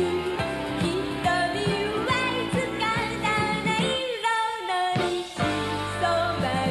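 Japanese idol pop song sung by a young woman over a band backing. About four seconds in, the bass and drums drop out for a moment while her voice glides up and holds a high note, then the band comes back in.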